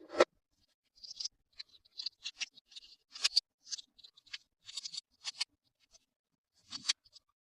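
Hands handling plastic toys and packaging: a sharp knock, then a run of short, high, crinkly scratching sounds, several a second, and another knock near the end.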